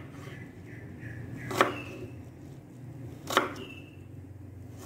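Kitchen knife chopping an onion on a wooden chopping board: two sharp knocks about two seconds apart, each followed by a brief high ring.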